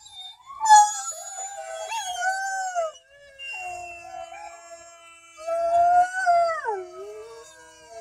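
Black and tan coonhound howling along with dog howls played from a video: several long, wavering howls overlapping, with short breaks about three and five seconds in.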